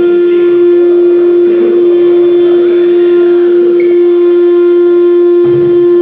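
Wood CNC router's spindle running at a steady high speed: one loud, steady whine with fainter overtones and a rougher, uneven cutting sound beneath it.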